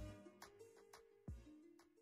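Faint background music: held notes over a deep drum beat, with hits near the start and just past a second in, fading down toward the end.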